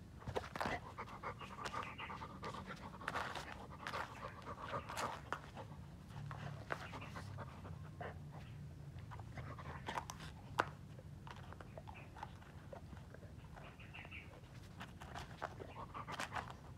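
Golden retriever panting, with scattered short sharp clicks; one click about ten and a half seconds in is the loudest.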